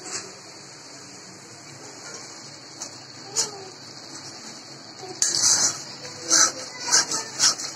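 Metal spatula stirring and scraping thick curry masala in a metal pan: a faint steady hiss, then from about five seconds in a run of loud, irregular scraping strokes.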